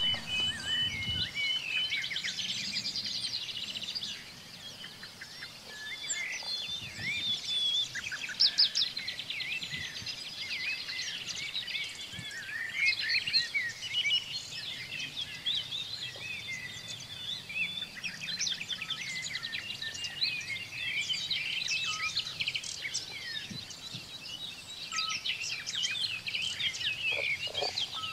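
A dense chorus of several songbirds chirping and trilling over a faint steady outdoor hiss, with no let-up.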